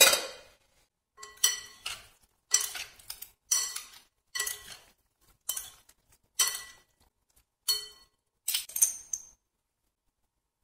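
A loud glass clink as the glass lid comes off the bowl. Then a metal spoon strikes the glass bowl about eight times, roughly once a second, while tossing the cooked potato slices. Each strike rings briefly, and the clinking stops a little before the end.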